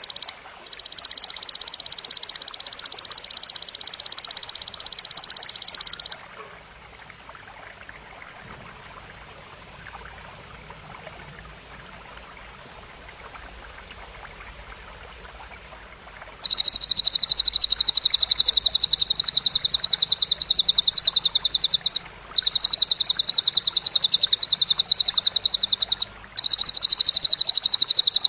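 High-pitched, rapidly pulsed buzzing trills from a cililin-and-belalang songbird-training recording: one trill for about the first six seconds, then a stretch of faint background hiss, then a louder, higher trill from a little past halfway, broken by two short pauses.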